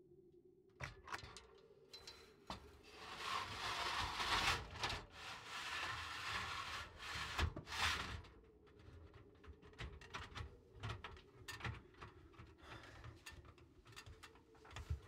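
Rustling and scraping on the wooden boards of a loft, loudest from about three to eight seconds in, followed by a run of small knocks and clicks.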